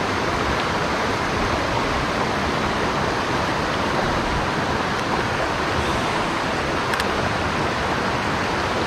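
Mountain stream water rushing over rocks, a loud, steady, even rush.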